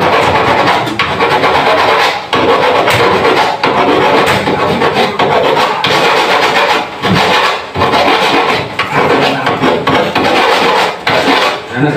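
Continuous rasping, rubbing noise with scattered knocks: surfaces being scraped and wiped by hand.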